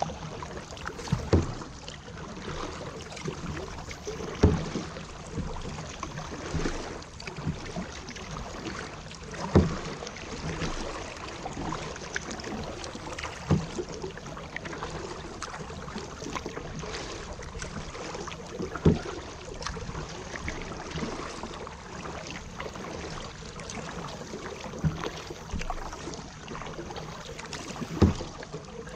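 Kayak being paddled: steady splashing and lapping of water around the paddle and hull, with six sharp knocks spread across it every few seconds.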